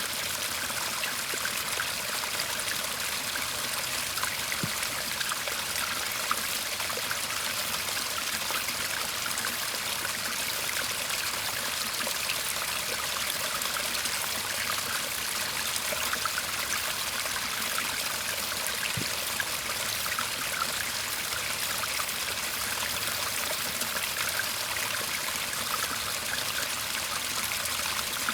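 Shallow garden stream babbling and trickling steadily over stones.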